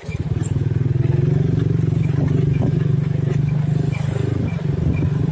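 Motorcycle engine running steadily, its sound rising sharply right at the start and holding loud throughout.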